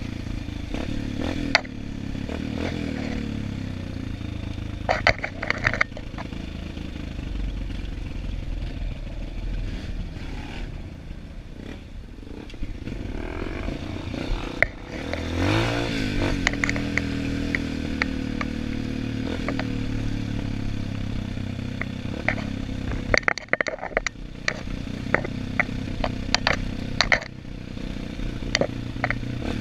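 Trail motorcycle engine running over a rough dirt track, revving up about halfway through. Scattered knocks and rattles come from the bike jolting over the rough ground.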